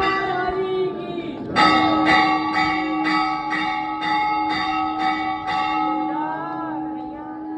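Temple bells ringing, one bell struck about twice a second from about a second and a half in, the strikes stopping a little over five seconds in and the ringing fading away.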